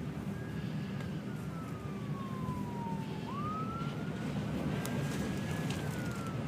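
Emergency vehicle siren wailing. Its pitch slides slowly down, jumps back up about three seconds in, climbs again, then starts to fall near the end, all over a steady low rumble.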